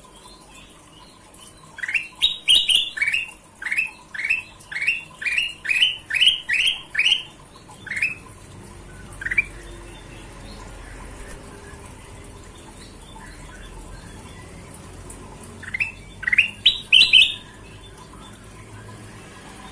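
Kutilang emas singing: a fast series of short, upward-slurred whistled notes, about two to three a second. After a pause it gives a second short burst of notes near the end.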